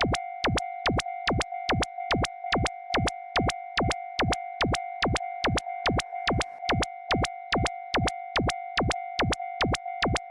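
Japanese railroad crossing warning bell ringing its steady 'kan-kan' about two and a half strokes a second, each stroke joined by a loud sharp click.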